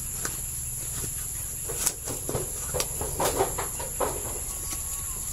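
Several short, sharp knocks and clatters of a knife against coconut shell halves as copra meat is pried out, over a steady low hum and an even high-pitched drone.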